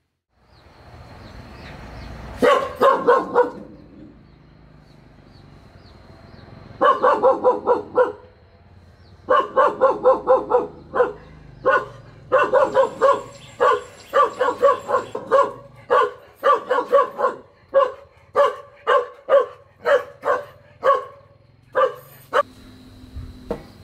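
A dog barking repeatedly: a short bout about two seconds in, then long runs of barks at about two to three a second from about seven seconds, stopping shortly before the end.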